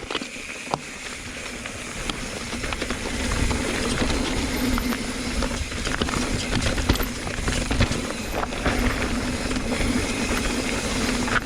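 Mountain bike rolling down a dirt trail: tyre noise, rattling and knocks over rocks, with wind rushing on the microphone. It builds up over the first few seconds as speed picks up, then holds steady.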